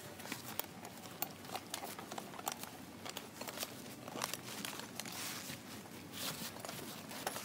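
Footsteps crunching on dry, leaf-covered ground, in irregular short clicks and scuffs as a person walks carrying a heavy roofing sheet.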